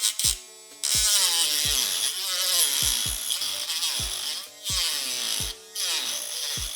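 Small handheld rotary tool running and cutting through the plastic of an RC car chassis, its motor pitch dipping and recovering under load. It stops briefly twice. Background music with a steady kick-drum beat plays under it.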